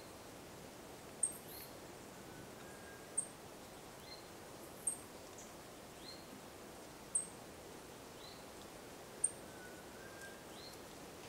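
Faint background hiss with a small bird's short high chirps repeating about every two seconds, and a faint longer whistle twice.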